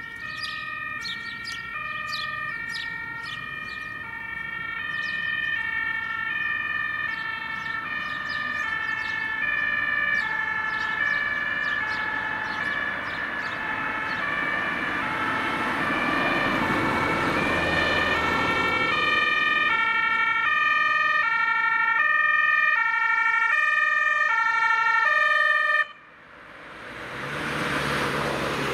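Two-tone German emergency siren (Martinshorn) of a Mercedes-Benz Vito emergency doctor's car on an emergency run, alternating evenly between a high and a low tone and growing louder as it approaches. Near the end the siren cuts off suddenly, and the van's engine and tyre noise rises as it drives close past.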